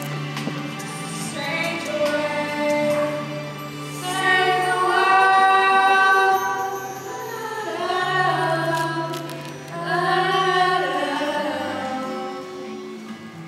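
A group of girls singing together, with several long held notes.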